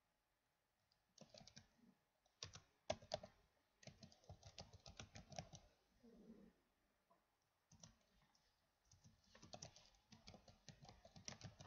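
Faint typing on a computer keyboard, in two runs of quick keystrokes: one in the first half and another in the last few seconds.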